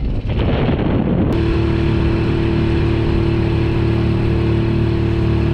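Wind buffeting the microphone, then, from about a second in, a Honda 5 hp four-stroke outboard motor running at a steady speed with an unchanging pitch.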